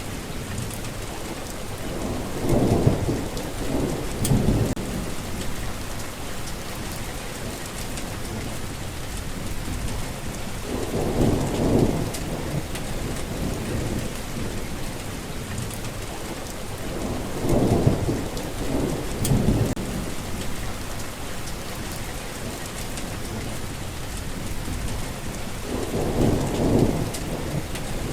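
Steady rain hissing, with low rolls of thunder swelling up four times, each lasting a second or two.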